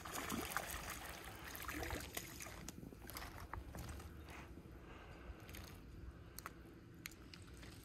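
Faint splashing of a small hooked speckled trout being reeled to the surface and lifted out of the water, with light scattered clicks of rod-and-reel handling over a low steady hum.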